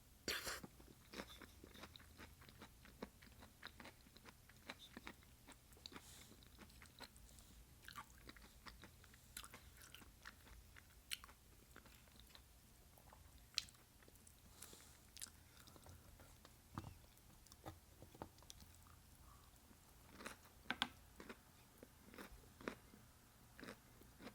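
A person chewing and biting up close on broccoli and cauliflower dipped in cheese dip. Soft crunches and mouth clicks come at irregular intervals, with louder bites just after the start and again about two-thirds of the way through.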